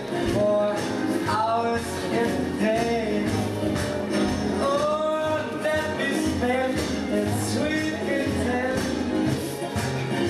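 A song playing, a singer's voice over a band with a steady beat.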